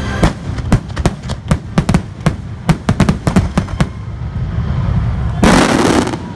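Fireworks finale: aerial shells bursting in quick succession, about three or four sharp bangs a second, then a loud hissing crackle for under a second near the end.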